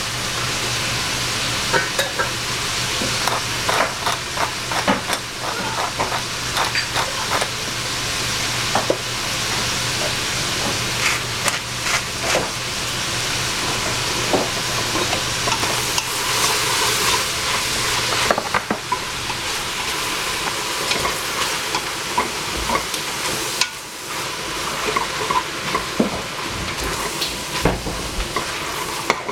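Cabbage and tofu sizzling steadily in a stainless steel pot, with frequent clicks and scrapes of a wooden utensil stirring against the pot.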